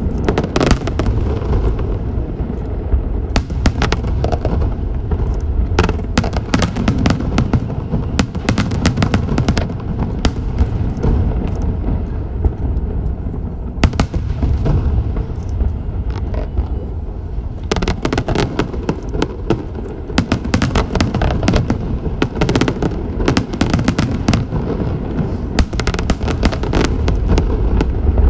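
Aerial fireworks display: a continuous low rumble of booming shells with many sharp bangs and crackles. The bangs come thicker and faster in the second half.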